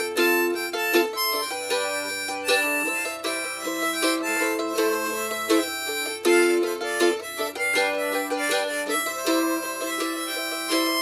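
Instrumental music: a melody of held notes over a steady plucked-string accompaniment.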